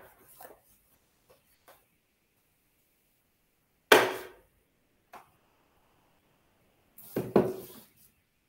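Scattered knocks and bumps: one sharp, loud knock about four seconds in, a faint one a second later, and a short cluster of clattering knocks near the end.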